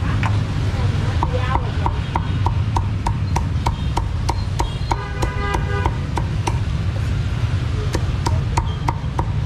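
Steel cleaver chopping roast pork on a round wooden chopping block: rapid, even strikes about three a second, each with a short ring. Beneath them is a steady low hum, and about five seconds in a held pitched sound lasts about a second.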